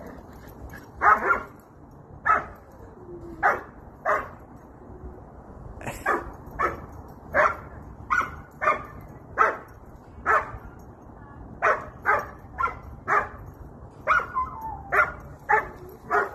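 A dog barking over and over in play, single and paired barks about once a second, with a short whine near the end.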